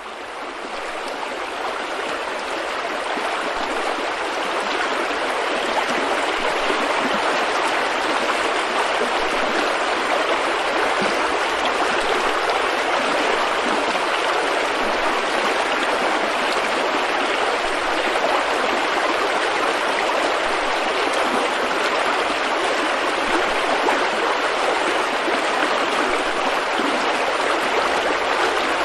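River rapids: water rushing steadily over rocks. It fades in over the first few seconds, then holds even.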